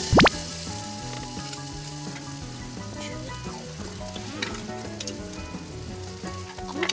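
Food sizzling steadily on the grate of a tabletop cassette-gas grill over its blue gas flame. Just after the start there is a brief, loud sweeping sound that falls quickly in pitch.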